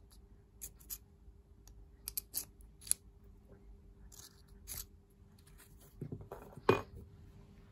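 Small metallic clicks and scrapes as a steel drive-tip shaft is worked in and out of a brass and aluminium screwdriver handle, with a louder click near the end.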